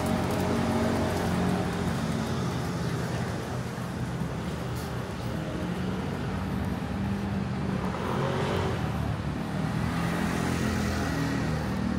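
Street traffic: motor vehicles running along the road in a steady rumble, with one passing or speeding up more loudly about eight seconds in.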